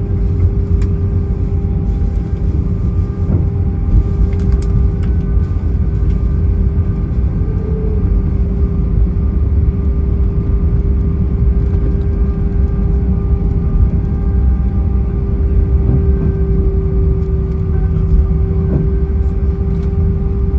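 Cabin noise of an Airbus A319 rolling slowly off the runway just after landing: a steady low rumble from the engines and the wheels on the pavement, with a steady hum running through it and a few faint clicks.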